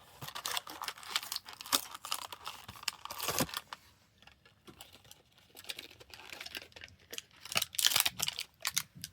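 A diecast car's carded blister package being cracked and torn open by hand: irregular crinkling, crackling and tearing of plastic and card, busy at first, quieter in the middle, then busy again near the end.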